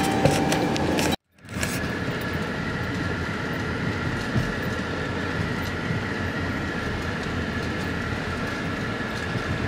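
Car driving along a dirt road, heard from inside the cabin: a steady rumble of tyres and engine. The sound cuts out briefly about a second in, then carries on unchanged.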